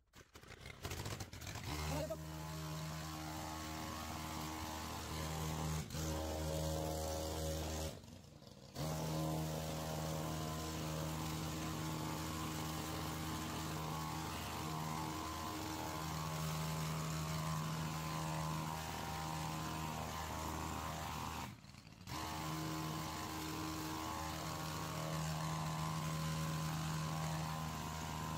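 Two-stroke petrol pole saw starting up within the first couple of seconds, then running steadily at speed while cutting branches. The sound breaks off briefly twice.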